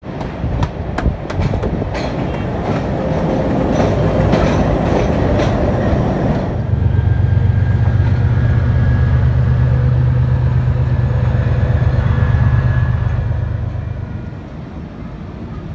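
Passenger coach wheels clicking over rail joints and points with a rumbling ride, heard through an open carriage window as the train runs into a station. From about six seconds in, a steady low hum of a diesel locomotive standing alongside takes over, fading away near the end.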